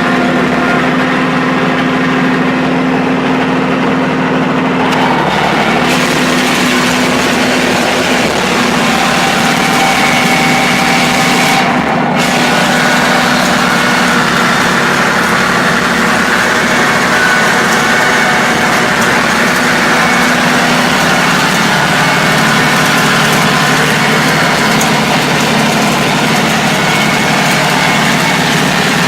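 Bulldozer's diesel engine running loud and steady.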